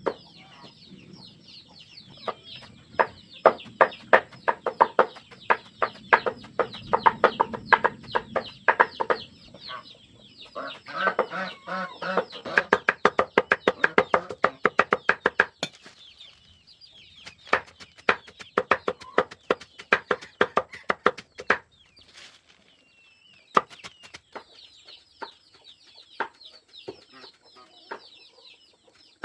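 Chickens clucking and high-pitched peeping, with a rapid, irregular run of sharp clicks and snaps through most of the middle that stops a few seconds before the end.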